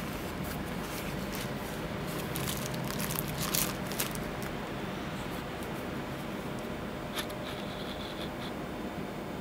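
Clear plastic wrapping crinkling and rustling as it is handled beside the watch box, busiest about two to four seconds in, with one sharp click a little after seven seconds, over a steady low background hum.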